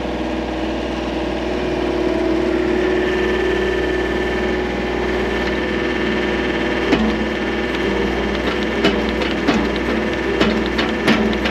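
Engine of a bucket-equipped digging machine running steadily under load while it digs a drainage trench. From about halfway through, irregular clanks and knocks come from the bucket and machine working.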